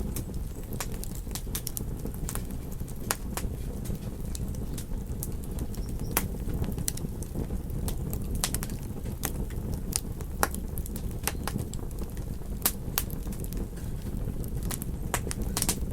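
Fireplace fire crackling: irregular sharp pops and snaps, several a second, over a steady low rumble of burning.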